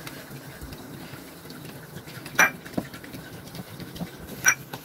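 Boiled tuvar dal being mashed in a pressure cooker with a wooden masher: a steady wet squishing and churning, with two sharp knocks of the masher against the pot, one about halfway through and one near the end.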